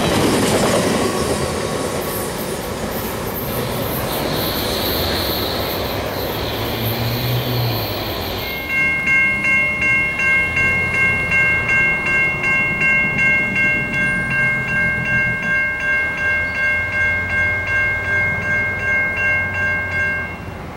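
Double-stack intermodal freight cars rolling past with steady wheel and rail noise. From about 8 seconds in, a grade-crossing bell dings about twice a second, a steady ringing tone, and stops just before the end.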